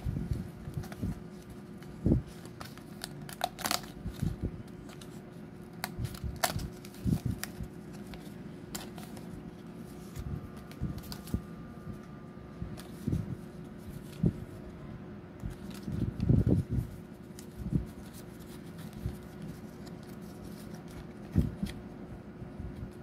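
Die-cut cardstock puppet pieces being handled, pressed out of their sheet and folded: irregular crisp rustles and clicks of stiff card, with soft knocks on the table and a longer burst of rustling about 16 seconds in.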